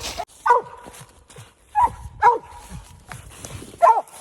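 Mountain cur barking treed at the base of a den tree: four single chop barks spaced unevenly, signalling that a squirrel is up the tree.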